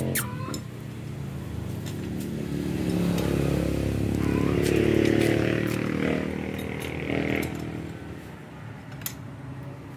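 A vehicle engine passing by: it grows louder, is loudest about halfway through, then fades away.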